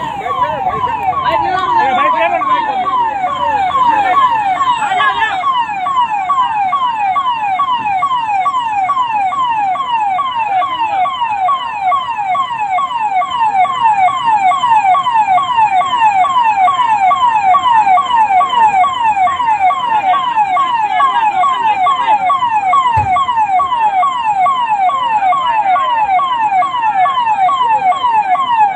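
Fire engine siren sounding continuously in a fast repeating cycle, each cycle a quick falling sweep, about two a second. Voices mix in under it during the first few seconds.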